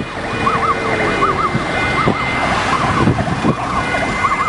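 A siren warbling in quick rising-and-falling pulses, several a second, over the low rumble of a moving vehicle.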